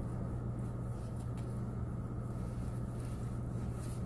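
Car running, heard from inside the cabin: a steady low hum with a soft rumble beneath it.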